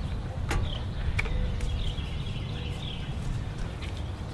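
Outdoor ambience with a steady low rumble and faint bird chirps, broken by a few light clicks and knocks from hands working on the engine's plastic intake manifold and carburetor.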